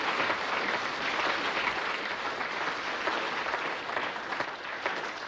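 Audience applauding, a dense patter of clapping that slowly dies down.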